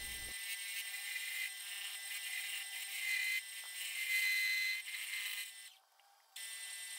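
Wood lathe running with a steady whine while a swept-back bowl gouge takes light cuts on the spinning wooden bowl. The sound drops out briefly about six seconds in, then the running resumes.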